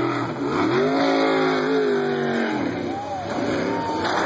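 A motor vehicle's engine revving, its pitch rising and falling in several swells, one long swell lasting about two seconds.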